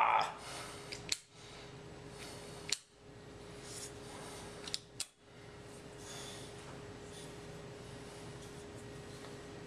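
A 4Sevens Maelstrom S18 LED flashlight being switched and handled: four sharp clicks within the first five seconds, over a faint steady hum.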